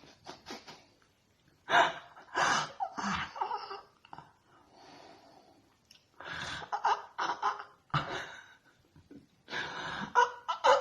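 A woman yawning deliberately with her mouth wide open, voiced, gasping yawns in three bouts with softer breathing between them.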